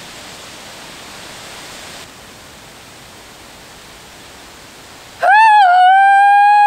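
Steady hiss of background noise for about five seconds. Then a woman lets out one long, loud, high-pitched cry of joy, its pitch holding and rising a little before it drops away at the end.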